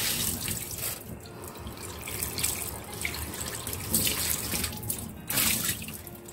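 Kitchen tap water running into a sink. It comes on suddenly, splashes louder about four seconds in and again about five and a half seconds in, and eases off near the end.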